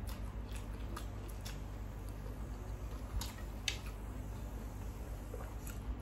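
A person chewing a mouthful of food close to the microphone, with short wet mouth clicks and smacks scattered through, over a steady low hum.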